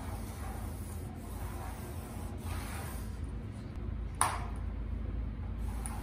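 A metal square being slid and set on galvanized sheet metal while a layout line is marked along it, giving soft rubbing and scraping, with one sharp click a little past four seconds in.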